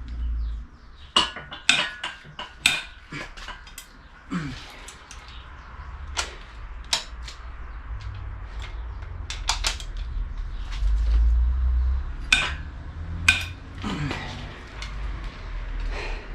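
Metal tools and engine parts clinking and clattering, with a dozen or so sharp knocks, some leaving a brief metallic ring.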